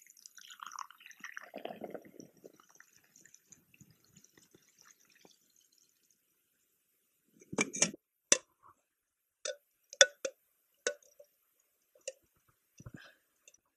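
Water drained from a small metal camp pot, trickling and splashing faintly onto snow for the first few seconds. Later, a string of short, sharp clinks and knocks from the metal pot as the parboiled potatoes are tipped out.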